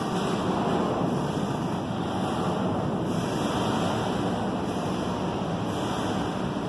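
Steady rushing, rumbling noise inside a large container ship's torsion-box passageway, even throughout, with no distinct creaks or knocks.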